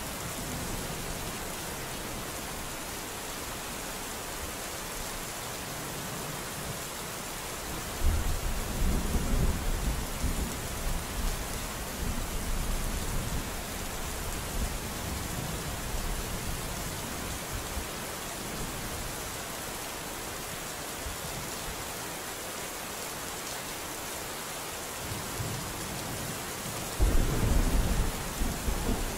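Steady rain falling, an even hiss, with thunder rumbling twice: a sudden low rumble about eight seconds in that dies away over several seconds, and another near the end.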